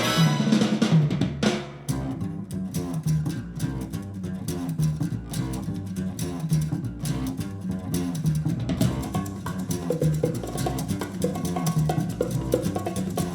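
Music played back through Kanto YU2 powered speakers and picked up in the room: a repeating bass-guitar riff over a drum kit and percussion.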